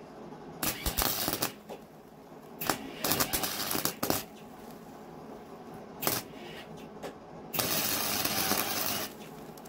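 MIG welder arc crackling in several bursts, from under a second to about a second and a half each, the longest near the end, as a steel handle is welded on.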